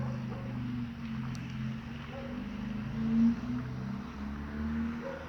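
A steady low engine hum that wavers slightly in pitch, with some wind noise on the microphone.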